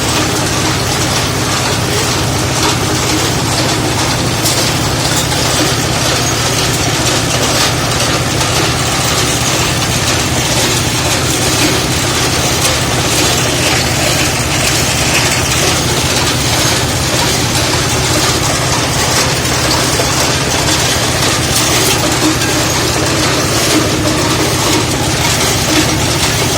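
A motor-driven machine running steadily and loudly, with a fast rattling clatter over a low hum.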